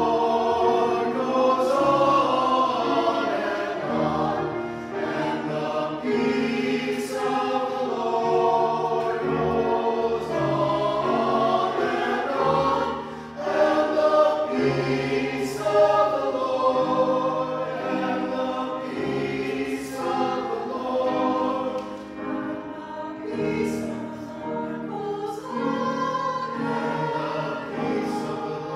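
Mixed church choir of men and women singing together.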